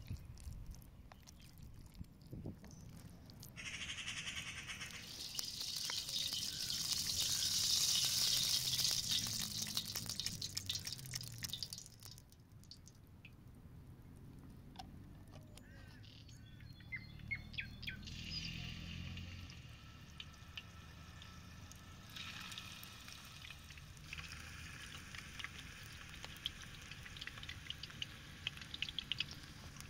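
A steady hiss through the first third, then a quieter stretch. In the last third, hot oil in a steel wok over charcoal sizzles and crackles with many small pops as turmeric-coloured chicken balls fry.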